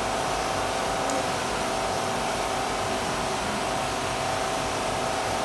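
A steady mechanical whir with a faint constant hum, even in level throughout.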